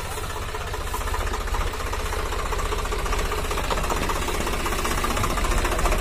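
Swaraj 744 FE tractor's three-cylinder diesel engine running with a steady low pulse, growing louder toward the end.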